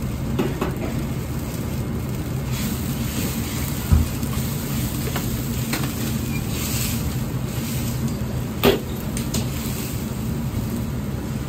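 Gas wok burner running with a steady low rumble under a wok of simmering sauce. There is a dull thump about a third of the way in, and a ladle knocks against the steel wok about three quarters of the way through.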